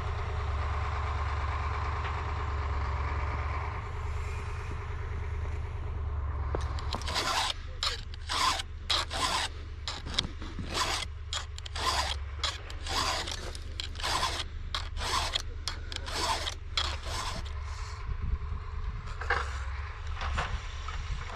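Repeated short scraping or crunching strokes, one or two a second, over a steady low engine hum; the strokes start about a third of the way in and stop a few seconds before the end.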